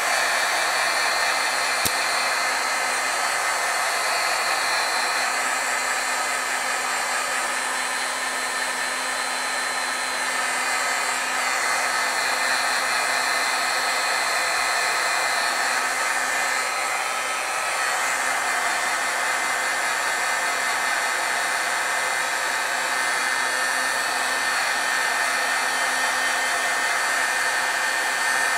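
Handheld craft heat gun (embossing heat tool) running steadily, blowing air with a faint steady whine, as it heat-sets wet dye ink on glossy card stock to stop the ink lifting.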